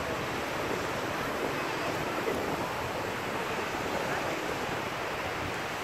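Steady rush of surf washing onto a sandy beach, mixed with wind rumbling on the phone's microphone.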